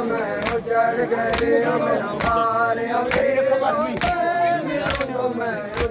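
Crowd of men chanting a nauha together, with sharp slaps of matam (hands striking bare chests in unison) keeping time, about one slap a second.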